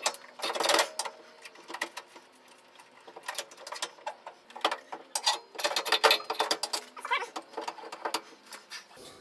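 Irregular metallic clicking and rattling from a hand tool working at the carriage and apron of a Boxford metal lathe, with quick clusters of clicks as a stuck part is worked at.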